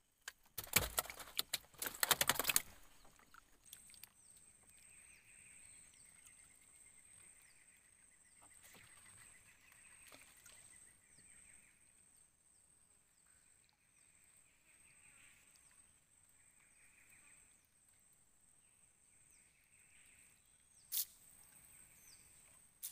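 Loud rustling and knocking for about the first two and a half seconds, then faint animal calls repeating roughly every second over a steady high whine, with one sharp click near the end.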